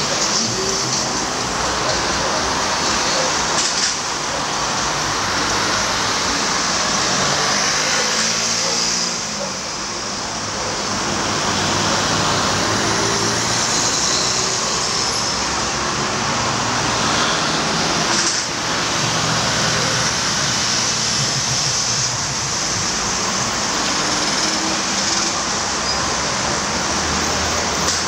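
Road traffic on a wide multi-lane city boulevard: cars passing below, a steady hiss of tyres and engines.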